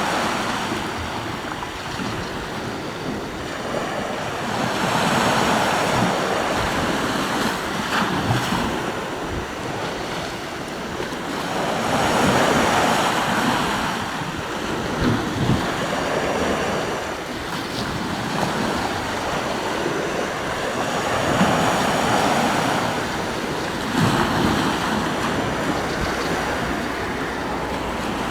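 Sea waves washing onto the shore, the surf swelling and fading every four to five seconds.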